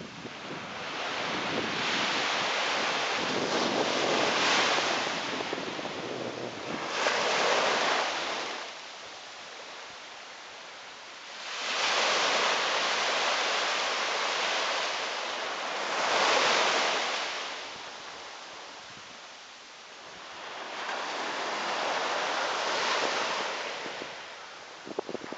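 Ocean surf washing onto a beach, a rushing hiss that swells up and fades away three times, each surge lasting several seconds with quieter lulls between.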